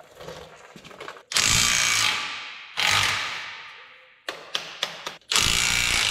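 Cordless power tool spinning bolts off a front hub's dust shield in three short bursts, each starting suddenly and dying away over about a second. A few small metal clicks come between the second and third bursts.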